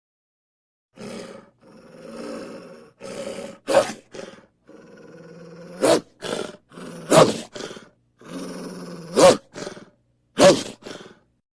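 Wolf growling and snarling in rough, rasping stretches, broken by about five short, loud outbursts that stand out above the growl.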